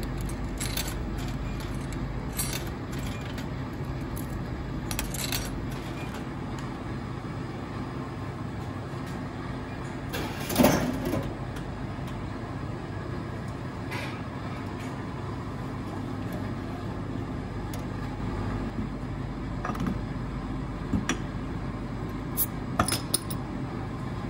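Coins clicking and dropping into the coin slot of a retro Coca-Cola glass-bottle vending machine, then one heavier clunk from the machine about ten seconds in. Near the end come a few sharp clinks as the glass bottle is handled at the machine, all over a steady low hum.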